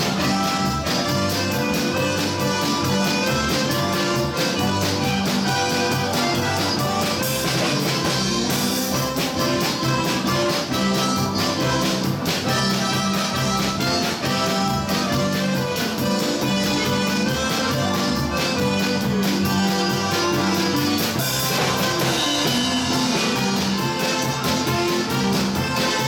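Live polka band playing, led by accordions (a red piano accordion and a button accordion), with a steady drum beat under the melody.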